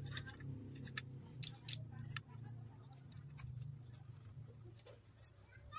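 Small metal blade scraping and ticking against the charred, burnt-through spot of a projector's inverter (ballast) circuit board, cutting away the carbonised board material. There is a quick run of sharp scrapes and ticks in the first two seconds, then fewer, over a steady low hum.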